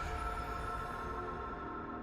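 Background music of held, sustained tones, with the higher part of the sound fading away.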